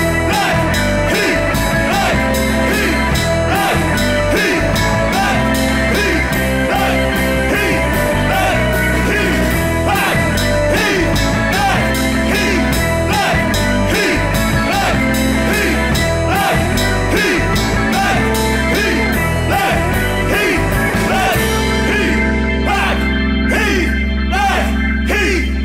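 Background music with a steady beat; the high end drops away about 22 seconds in.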